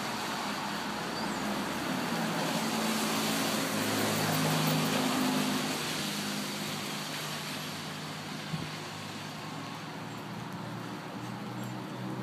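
Background street traffic: a steady hiss with a vehicle engine hum that swells about four to five seconds in and fades. A single brief knock about eight and a half seconds in.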